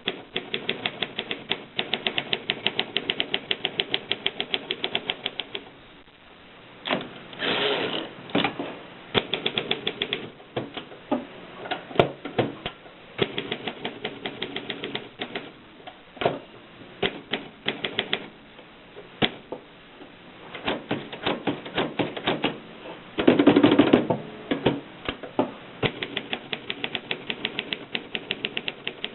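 WW2-era Continental manual typewriter being typed on: fast runs of sharp key strikes broken by short pauses, with a couple of longer, louder mechanical noises between the runs.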